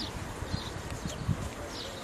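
Outdoor ambience: a few faint, short bird chirps over irregular low thuds and rumble.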